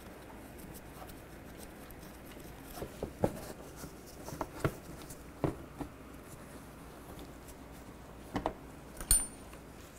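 Scattered light clicks and taps as screws are started by hand into a car's inner fender liner at the wheel opening, over faint room tone.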